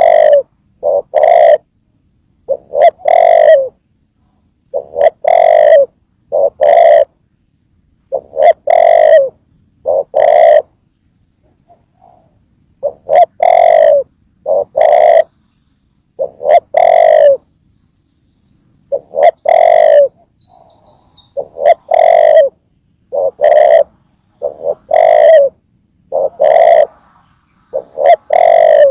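A dove cooing repeatedly and loudly, close by: short phrases of a brief coo followed by a longer one, every couple of seconds, with a few longer pauses between phrases.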